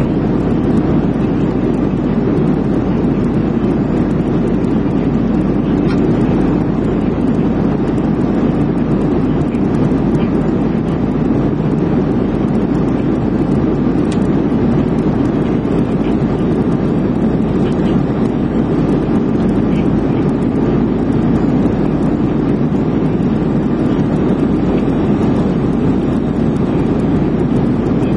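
Steady roar of an airliner cabin in flight: engine and airflow noise, even and unbroken.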